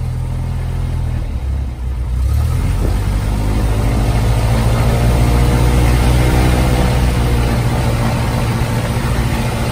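Cessna 172M's four-cylinder Lycoming aircraft engine and propeller running after ten years of storage. About two seconds in it speeds up and gets louder, holds the higher revs, then eases back slightly near the end.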